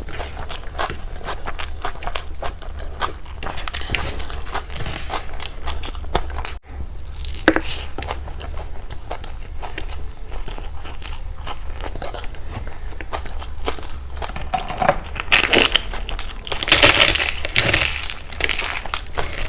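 Close-miked eating sounds: chewing and wet mouth clicks in quick succession, with a louder stretch of crunchy, noisy bites near the end, over a steady low hum.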